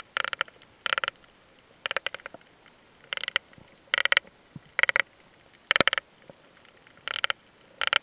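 Swimming noise recorded underwater: short crackling swishes roughly once a second, in a steady rhythm as the diver swims.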